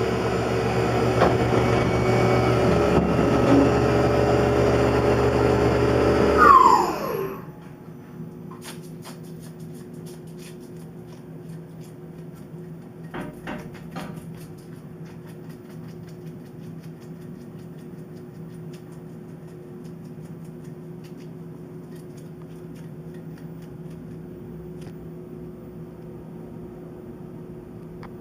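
Tormach PCNC 1100 CNC mill running with its spindle at speed. About six seconds in the spindle stops and winds down with a falling whine, leaving a quieter steady machine hum broken by a few light clicks.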